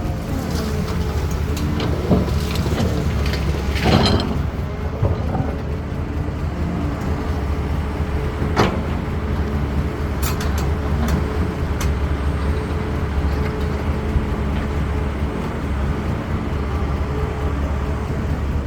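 CAT 320D excavator's diesel engine running steadily under load, with sharp knocks and clanks now and then, the loudest about four seconds in.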